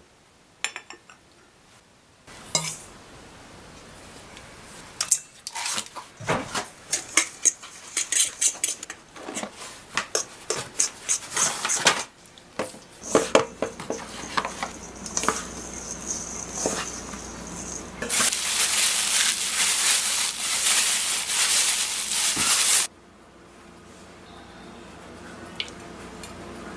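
A porcelain cup clinks once onto its saucer, then a utensil clinks and scrapes again and again against a mixing bowl as butter cookie dough is mixed. Later a loud steady hissing rush lasts about five seconds and cuts off suddenly.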